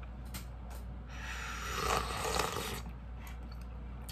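A person slurping soup from a cup of tonkotsu cup ramen: one noisy slurp about a second in, lasting about a second and a half, after a couple of light clicks.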